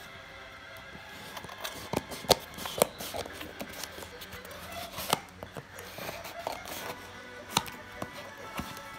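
Scissors cutting through packing tape along the seam of a cardboard box: scattered sharp snips and scrapes, the loudest clicks about two to three seconds in. Soft background music plays underneath.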